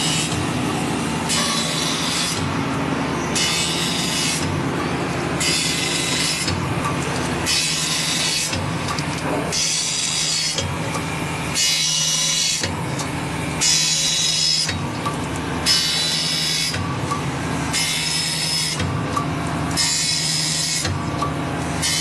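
MF-127 circular saw blade grinding machine sharpening a blade: a steady motor hum with a rasping grind that comes about every two seconds, one pass of the grinding wheel per tooth as the blade is indexed round.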